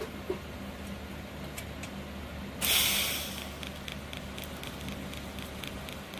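TIG welding arc tacking a steel tube to its tabs. It strikes about two and a half seconds in with a sudden loud hiss, which settles within a second into a quieter, steady hiss.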